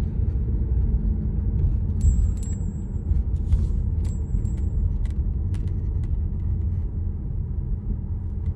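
Steady low rumble of a car's engine and tyres heard from inside the cabin while driving slowly, with a few light clicks and knocks in the middle of the stretch.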